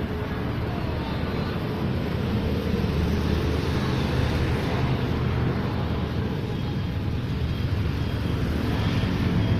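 Steady road traffic noise from vehicles passing on the adjacent street, with a low engine rumble.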